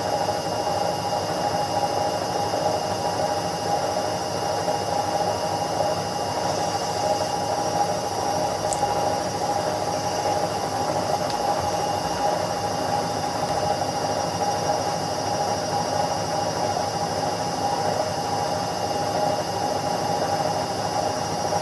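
Indesit washing machine spinning at top speed: a steady whirring drone with a constant whine over it, holding even speed.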